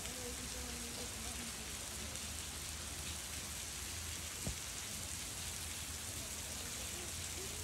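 Steady rush of river water flowing over rocks, with faint distant voices in the first second or so and a single sharp click about four and a half seconds in.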